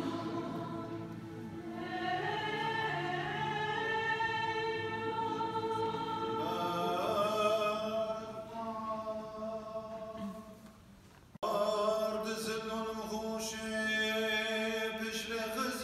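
Choir singing a slow church chant with long held notes. It fades about ten seconds in, then cuts back in abruptly.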